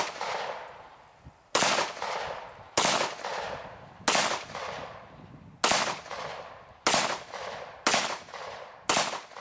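Hi-Point C9 9mm pistol fired seven times in a steady string, roughly one shot every second or so, each shot sharp and followed by a short fading echo. The rounds are hot 100-grain +P PowRBall loads.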